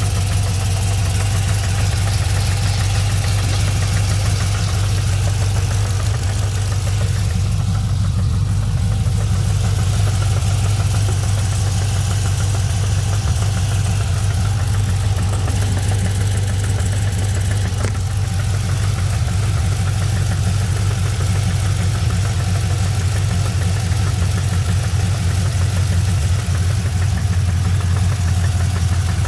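GM LS3 6.2-litre V8 engine idling steadily, with its strongest sound a low hum around 100 Hz; this is the idle noise the owner is recording.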